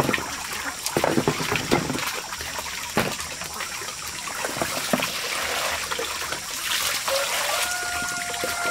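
Water splashing and trickling as a plastic scoop pours it into a plastic basin of peeled bamboo shoots, over steady running water. A few sharp knocks of the plastic scoop and containers come in the first few seconds.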